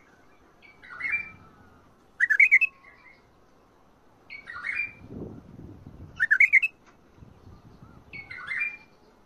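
White-eared bulbul (Iraqi bulbul) singing: short whistled phrases about every two seconds, warbled phrases alternating with louder runs of quick notes. This is the Mandali and Badra song style that keepers play to young bulbuls to teach them.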